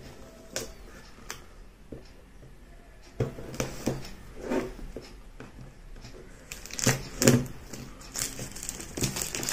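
Plastic shrink-wrap on a cardboard phone box being scored with a pointed tool and peeled off: scratching, sharp clicks and crinkling of the film, loudest about seven seconds in, with denser crinkling near the end.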